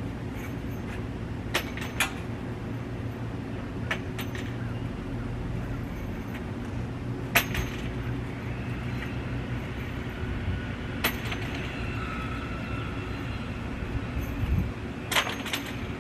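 A handful of sharp clinks and knocks from hand work on the porch, spaced several seconds apart, the loudest about halfway through, over a steady low hum.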